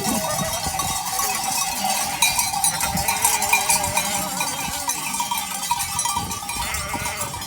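A large flock of sheep on the move, many bells on the animals clanking together without a break, with sheep bleating now and then.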